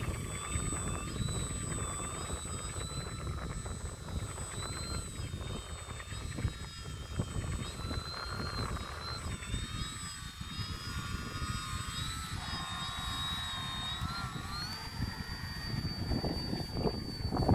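Whine of a radio-controlled autogyro's motor and propeller in flight, its pitch wavering up and down with the throttle and then stepping up and holding higher near the end. Wind rumbles on the microphone underneath.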